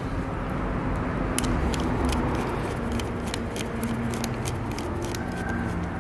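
Small metallic clicks and taps of hand work on the injector's mounting bolts, started by hand, over a steady background rumble.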